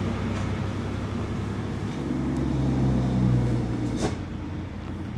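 A vehicle engine running with a steady low hum that grows louder about two seconds in and eases off again, and a sharp click about four seconds in.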